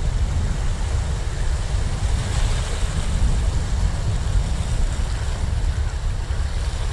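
Wind rumbling on the microphone over small waves washing and fizzing over the shoreline rocks, the wash swelling about two to four seconds in.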